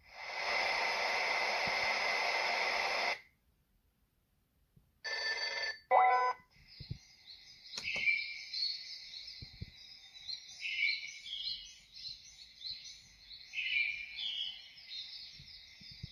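Sunrise alarm clock's speaker switching through its built-in alarm sounds: a dense ringing tone for about three seconds, then two short snatches of other sounds, then a looping track of high chirping birdsong.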